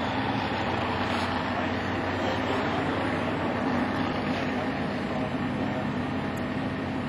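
Steady drone of an idling engine, even and unchanging.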